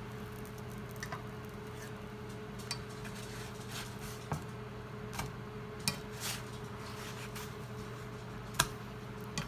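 Spatula and utensils clinking and scraping against a frying pan while veggie burger patties cook and are checked, a few short sharp clicks and knocks, the loudest near the end, over a steady low hum.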